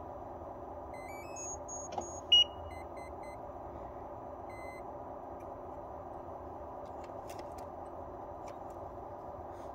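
Electronic beeps over a steady hum: a short run of stepped chirps, a click, then one loud high beep about two and a half seconds in, followed by a few short lower beeps.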